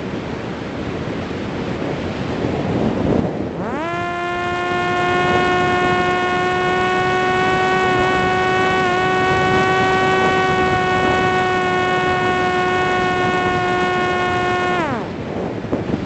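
Parrot Disco's electric motor and pusher propeller, heard over wind rushing past the onboard microphone. About four seconds in, the motor spools up quickly to a steady high whine, holds it, then winds down and stops near the end, leaving only wind noise.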